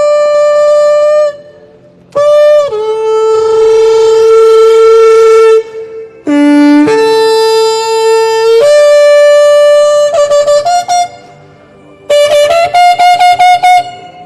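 Shofar blown in a series of loud blasts: long held notes that jump between two or three pitches, ending in a run of short, quick broken blasts.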